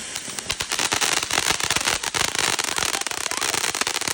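Fireworks crackling: a rapid, irregular run of sharp pops, many a second, taking over from a steady hiss about half a second in.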